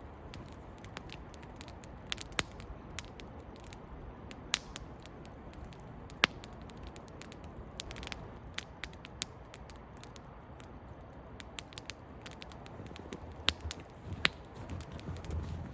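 Campfire and the sausage with bacon cooking over it: irregular sharp crackles and pops over a steady sizzling hiss.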